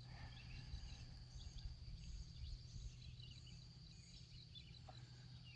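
Faint, quiet outdoor morning ambience by a still lake: a low steady hum under scattered faint chirps of distant birds and a thin, steady high insect drone.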